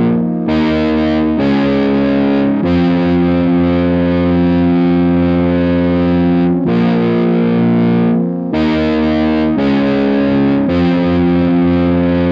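Digital synthesizer played through a Strymon Iridium amp and cab simulator pedal, giving an overdriven, amp-like tone. It plays a slow run of held chords that change every one to four seconds.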